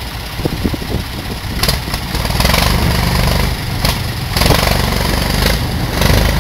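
Tractor engine running, its low steady note growing louder and heavier about two and a half seconds in as the loader/backhoe works, with a couple of sharp knocks.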